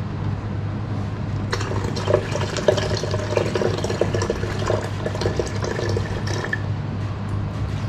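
Water poured from a jug into an empty electric kettle, splashing and filling for about five seconds from a second and a half in.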